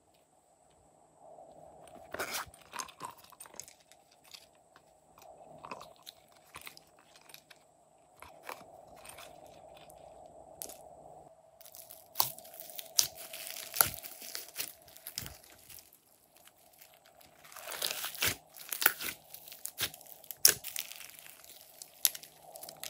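Hands pressing, kneading and pulling glossy slime loaded with glitter, confetti and foam pieces, giving irregular crunching crackles and pops. They come in clusters, busiest in the second half, over a faint steady hum.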